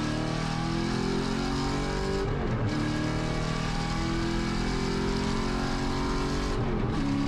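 Camaro Z/28.R race car's 7.0-litre LS7 V8 at full throttle, heard from inside the cockpit, rising in pitch as it pulls through the gears. It cuts briefly for a shift about two and a half seconds in and again near the end, then climbs again from lower revs.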